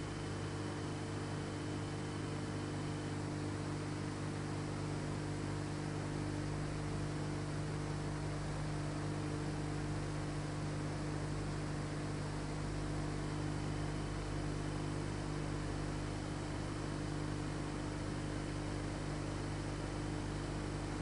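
Steady electrical mains hum with hiss on the soundtrack, with no carving or chopping sounds heard; a faint high whine drops out about three seconds in and comes back past the middle.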